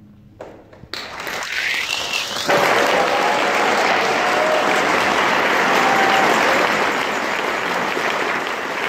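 Audience applause breaks out about a second in and builds over a second or so into loud, steady clapping.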